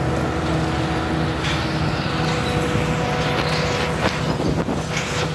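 Hitachi Zaxis 350 high-reach demolition excavator's diesel engine running steadily with a steady whine. Several short cracks and crunches come from the primary crusher attachment breaking concrete, the sharpest about four seconds in.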